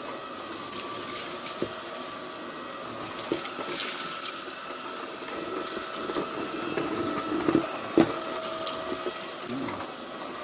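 Buture JR400 cordless stick vacuum running at its lowest suction setting, a steady motor whine, with small clicks and crackles as cereal pieces are sucked up.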